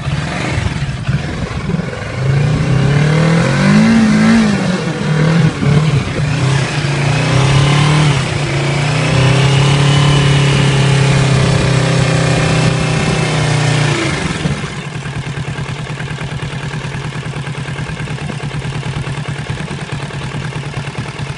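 Kawasaki Z650 parallel-twin motorcycle engine revved in short blips, then held at raised revs for several seconds, dropping back to a steady idle about 14 seconds in.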